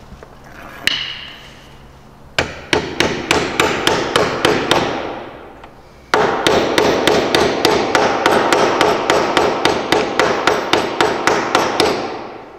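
Rapid hammer blows on a mower deck spindle, driving a new bearing into the spindle housing. About four strikes a second, in a run of about three seconds, then after a short pause a longer run of about six seconds, with a single knock about a second in.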